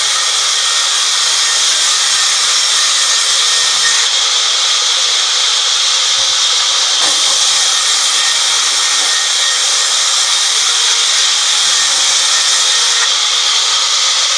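Sawmill band saw ripping a teak plank: a loud, steady hiss of the blade cutting along the wood.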